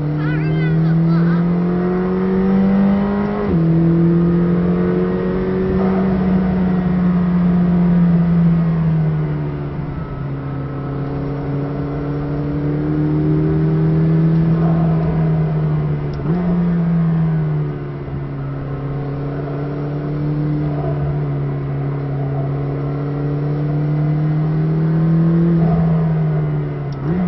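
McLaren 620R's twin-turbo V8 heard from inside the cabin at track speed, its note climbing and falling with the throttle. A quick gear change drops the pitch about three seconds in, a downshift makes it jump about sixteen seconds in, and another shift comes near the end.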